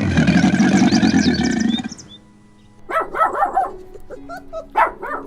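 A loud animal roar fills the first two seconds. After a short pause, a dog barks and yips in quick, short, high calls.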